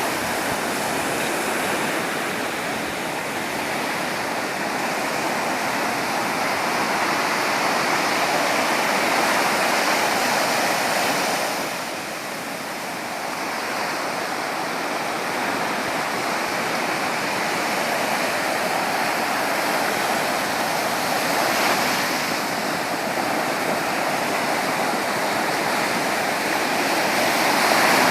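Sea surf: a continuous rush of waves breaking and washing in, swelling and easing slowly. It dips for a few seconds about twelve seconds in and builds again near the end.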